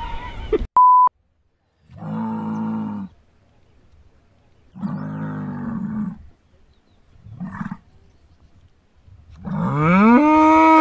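Young bull bellowing four times: two lowing calls, a short one, then the loudest, a long call that rises in pitch and is held near the end. A short electronic beep sounds about a second in.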